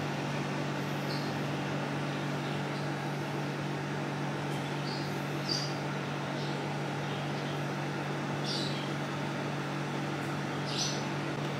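Steady low electrical hum of a room appliance, with a few short, faint high squeaks scattered through.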